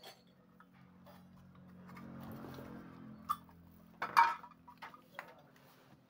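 Refrigerator compressor humming, a steady low hum of several even tones that comes on just after a click at the start. Light metal clicks and ticks from handling the relay and terminal wiring, with a louder clink about four seconds in.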